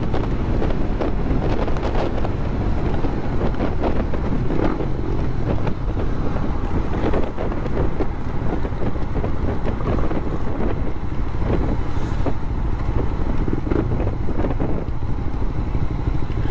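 Wind buffeting the microphone over the steady running of a Suzuki Raider 150 Fi's single-cylinder engine while cruising at road speed.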